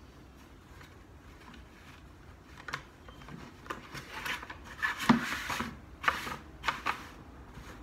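A cotton pillowcase rustling and rubbing as it is pulled and stretched over the rim of a plastic 5-gallon bucket: a run of short rustles and scrapes starting about three seconds in, loudest about five seconds in.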